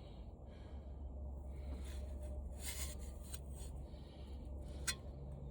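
Quiet room tone with a steady low hum, faint rustling and a sharp light click about five seconds in.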